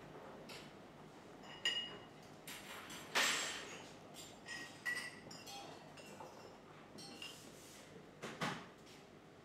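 Café crockery clinking: scattered clinks of cups and dishes, a few ringing briefly, mixed with short knocks and scrapes, the loudest about three seconds in and another near the end.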